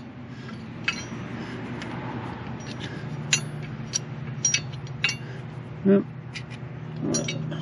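Scattered metal clicks and clinks as steel pins and brackets of a John Deere 1025R AutoConnect deck linkage are handled and worked loose, over a steady low hum.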